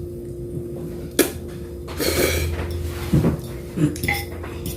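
Cutlery clinking and scraping against plates during a meal: a few short sharp clinks, with a longer scraping noise about two seconds in.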